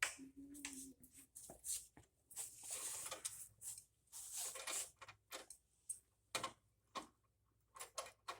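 Faint handling noises: scattered light clicks and short rustles from working tools and a tow hook by hand, with a brief low hum near the start.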